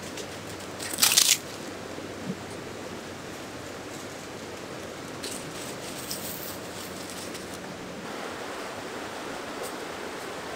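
Steady rushing of a fast river, with one brief loud crunch of dry leaves about a second in and a few faint rustles of leaves later on.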